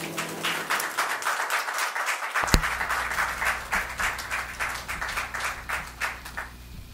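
A group of people clapping and applauding, fading toward the end, with one sharp knock about two and a half seconds in.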